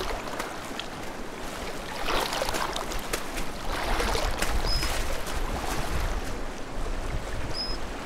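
Water splashing and lapping as Eurasian otters swim and surface in open lake water, with louder splashing surges about two and four seconds in.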